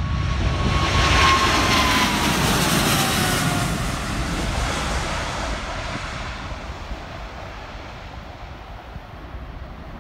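Boeing 777-300 airliner's twin jet engines at takeoff thrust as it climbs past. The noise is loudest one to three seconds in, with a whine that falls in pitch as the jet goes by, and then it fades steadily as the jet flies away.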